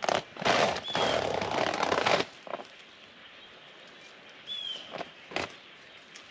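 Shelled corn poured from a bag into a deer feeder's hopper: a loud rush of kernels for about two seconds, then a sharp knock near the end. A bird gives a short falling chirp twice.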